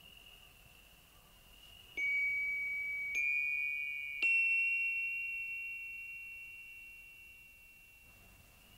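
Three high, bell-like chime notes struck about a second apart, each a little higher than the one before, ringing on and slowly fading together. A faint steady high tone runs underneath.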